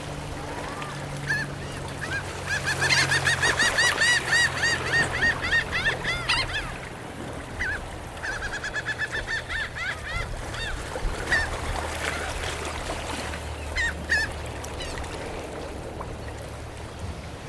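Seagulls calling: a fast run of short, repeated squawks about four a second, a second run in the middle, then a few single calls, over a steady low wash of surf and wind.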